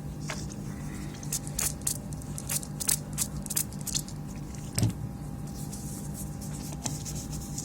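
Scattered small clicks and crackles of hand tools working on a circuit board, over a steady low hum.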